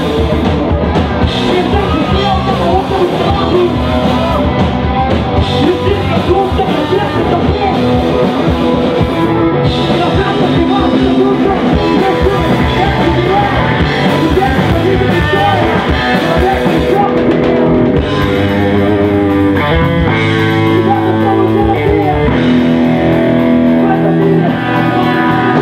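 Live rock band playing loudly through a PA: electric guitar, drum kit and a sung lead vocal.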